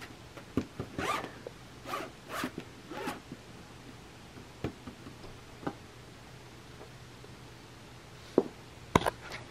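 Cats' paws and claws scraping and catching on the mesh mat of a mini trampoline: a run of short zipper-like rasps in the first three seconds, then a few sharp clicks later on, the loudest near the end.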